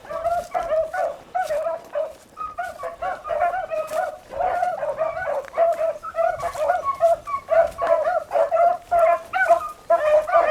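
A pack of beagles baying while running a rabbit's track: many overlapping bays and yelps in quick succession, with no pause. This is the sign that the hounds are on the scent.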